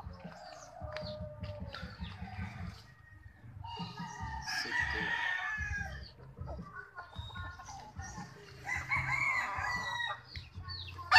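Gamefowl roosters crowing: one long crow about four seconds in and another near the end.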